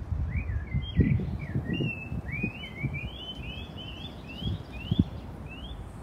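A songbird singing a run of about a dozen short rising whistled notes, each starting a little higher than the last, over irregular low rumbling thumps, the loudest about a second in and near the end.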